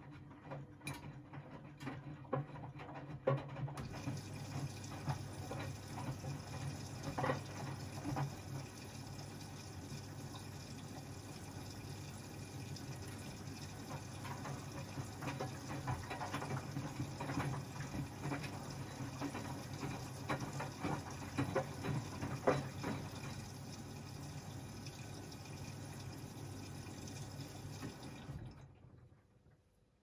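Miele W 426 front-loading washing machine taking in water: a steady hum with water rushing into the drum and occasional splashes. The inflow stops abruptly about 28 seconds in.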